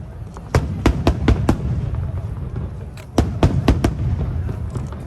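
Aerial fireworks shells bursting in two quick volleys of sharp bangs, about five each, a second and a half apart, over a continuous low rumble.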